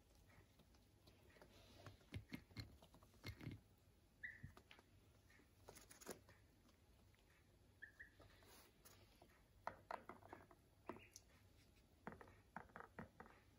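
Faint taps and pattering of ducklings and a gosling pecking and stepping on a windowsill, in scattered clusters, with two short soft peeps.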